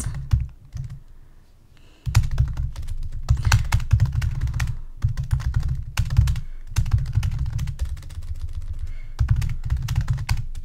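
Typing on a computer keyboard: fast runs of key clicks with short pauses between words, starting about two seconds in.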